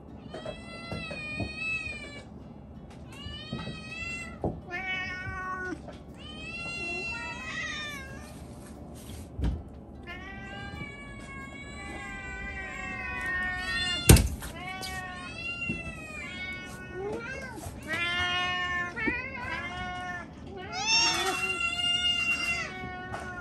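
Several domestic cats meowing over and over, calls rising and falling in pitch and sometimes overlapping, as they beg to be fed. A single sharp knock about fourteen seconds in.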